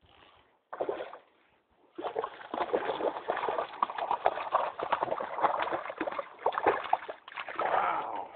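Water splashing and sloshing irregularly. It starts about two seconds in after a short splash, then goes on busily with many small slaps and splashes.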